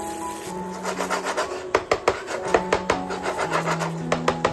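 A wooden spatula scraping and knocking against a non-stick frying pan as thick ragù is stirred: an uneven run of rough scrapes and sharp clicks from about a second in.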